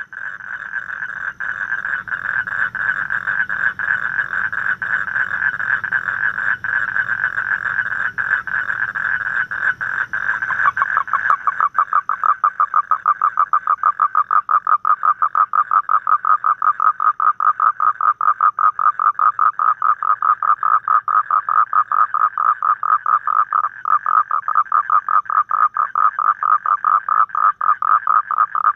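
A toad calling in one long unbroken trill, a rapid run of pulses. About eleven seconds in, the pulses become more separate and evenly spaced, and a low hum underneath stops.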